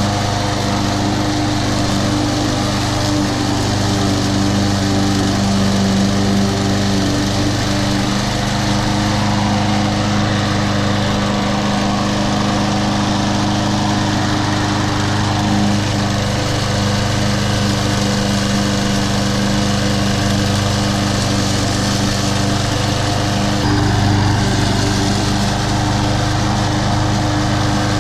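Troy-Bilt TB230 21-inch walk-behind mower with a Briggs & Stratton engine running steadily at mowing speed. The engine note shifts slightly about three quarters of the way through, as the mower moves from the drive onto the grass.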